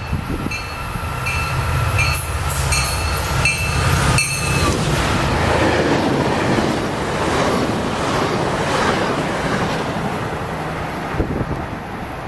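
A train coming through the station. For the first four seconds a low engine rumble comes with a repeated ringing tone about every three quarters of a second; then loud, steady rushing wheel noise as the train passes.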